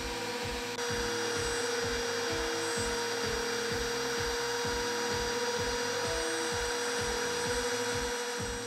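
Ozito router spindle on a DIY CNC router running at high speed while a 2 mm bit cuts MDF: a steady high whine with cutting hiss that grows louder about a second in. Background music with a steady beat plays underneath.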